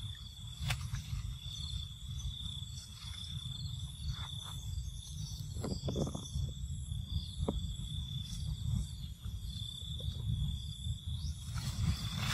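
Outdoor tree-canopy ambience: a constant low rumble of wind on the microphone and a steady high-pitched drone, with a few faint rustles and snaps of branches as monkeys climb.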